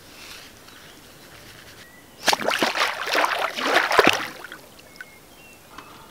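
A swimmer plunging under the surface of a calm lake: a loud burst of splashing about two seconds in, lasting about two seconds.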